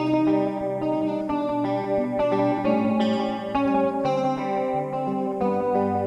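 Hollow-body electric guitar playing, with sustained notes and chords that change about every half second.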